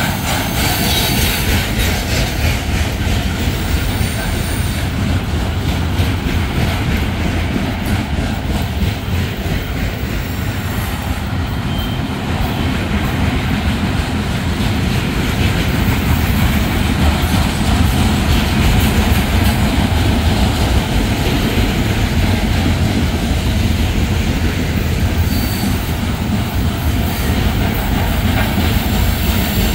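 Freight cars of a loaded trash train, flatcars carrying waste containers, rolling steadily past: a loud, continuous rumble of steel wheels on the rails.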